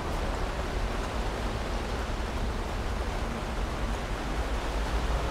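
Steady outdoor background noise: an even hiss over a low rumble, with no distinct sound standing out.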